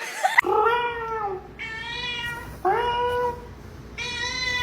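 Domestic cat meowing four times in a row, each meow a short drawn-out call.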